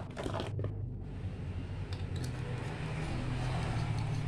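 Steady low rumble of a motor vehicle engine running on the road outside, with a few light handling clicks.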